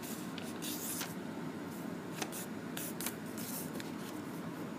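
A sheet of origami paper being handled and folded in half, with short, irregular paper rustles and crinkles over a steady low hiss.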